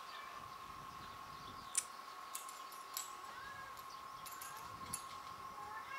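Cat nail clippers snipping claws: a sharp click about two seconds in and another about a second later, with a fainter click near the end. A steady high-pitched hum runs underneath, and a faint cat mew comes in between the clicks.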